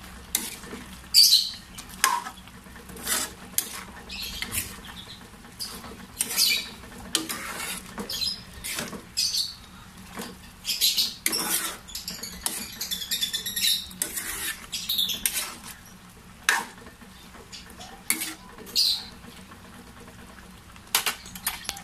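Wooden spatula scraping and stirring a thick pork menudo stew in a metal frying pan, in irregular strokes about once a second, thinning out near the end.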